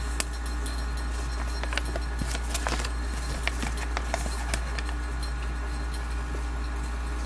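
Crinkling of a folded paper leaflet being unfolded and handled: irregular small clicks and crackles over a steady low electrical hum.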